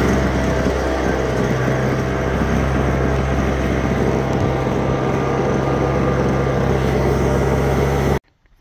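An engine running steadily at a constant speed, a low even drone that cuts off suddenly near the end.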